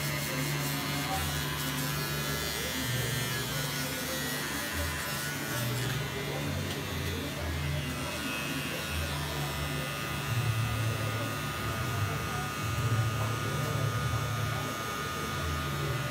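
Cordless electric hair clippers running with a steady buzz, cutting short hair close to the scalp.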